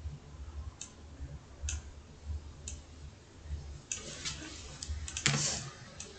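Faint clicks of a computer mouse: a few single clicks about a second apart, then a quicker run of clicks with a brief scuffing noise about four to five seconds in.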